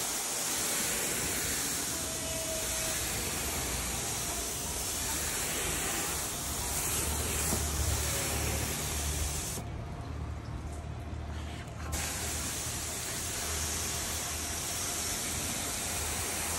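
Water from a hose nozzle spraying onto a car's painted bodywork, a steady hiss. The spray cuts out for about two seconds a little past the middle, then resumes.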